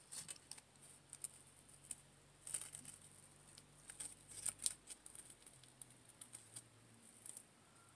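Faint rustling and light clicks of artificial flowers and floral wire being handled and fitted together by hand, with a faint low hum underneath.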